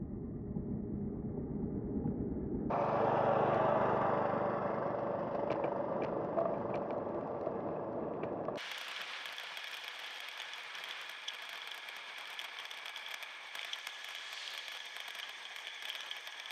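Wind rushing over the microphone with light rattling from a Schwinn Krate muscle bike coasting fast downhill. The sound changes abruptly twice, from a deep rumble to a brighter rush about three seconds in and to a thin hiss about nine seconds in.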